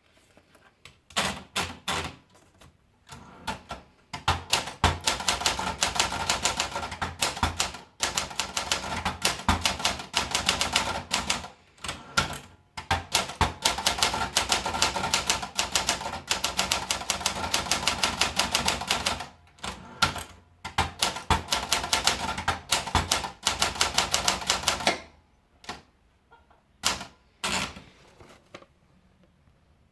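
Olympia Splendid 66 portable manual typewriter being typed on: long runs of rapid keystrokes with short pauses between them, then a few single strokes near the end.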